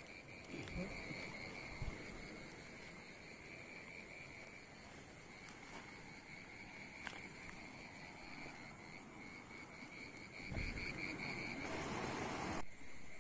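Night chorus of frogs and insects calling steadily, a pulsing high trill that never stops. A louder burst of rustling comes near the end.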